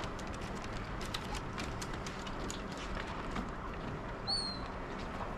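Steady low background noise with faint, scattered light taps and clicks, and one short high chirp about four seconds in.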